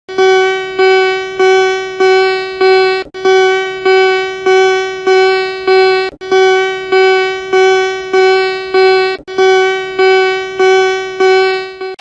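Emergency alert alarm tone: one buzzy, mid-pitched note beeping about every 0.6 seconds, each beep fading a little, in runs of five with a short break about every three seconds.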